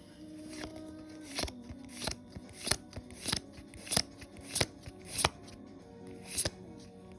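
Pokémon trading cards being flicked through one at a time, a crisp card snap about every half second to second, over quiet background music.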